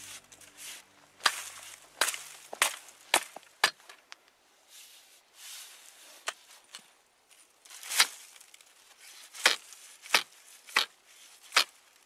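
Steel ice chisel chopping at ice around a trap hole: a quick run of five sharp strikes in the first few seconds, then after a pause a few more strikes, each a second or so apart.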